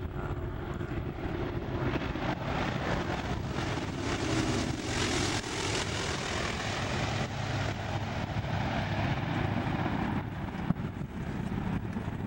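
Twin-engine Canadair water bomber flying low overhead, its engines and propellers droning. The sound swells to its loudest about four to six seconds in as the plane passes, then fades as it moves away. A single sharp click comes near the end.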